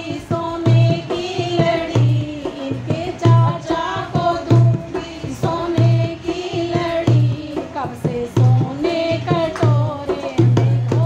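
Indian wedding folk song: a woman singing a melody over a steady low drum beat, a little faster than one beat a second.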